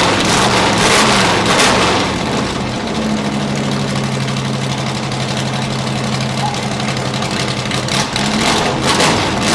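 1968 Corvette's 427 big-block V8 running through Hooker side-pipe exhaust: revved in a few blips, then settling to a steady lumpy idle for about five seconds, with another rev near the end.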